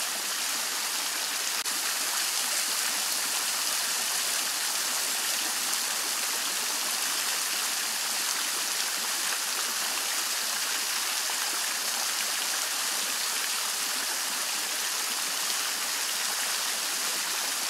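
Water of a Henri Studio three-tier Renaissance fountain spilling from its tiers and splashing into the Grando basin below: a steady, even splashing hiss.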